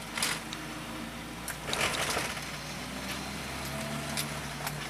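Volkswagen Voyage's AP four-cylinder engine running at low revs, heard from inside the cabin as the car rolls slowly, with a low steady hum. A brief noisy rush comes about two seconds in, and a few light clicks and rattles are heard.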